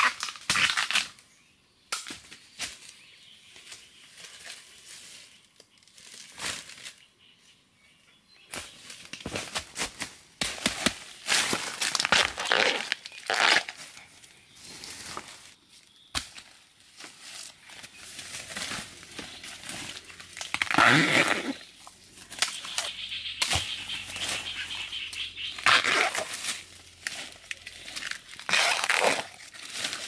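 Irregular rustling and crinkling in short bursts, with the loudest bursts past the middle and near the end.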